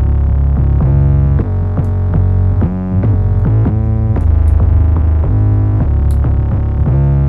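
Distorted synthesized 808 bass played as a run of deep notes, some sliding in pitch, with gritty overtones from the drive, over a few faint ticks.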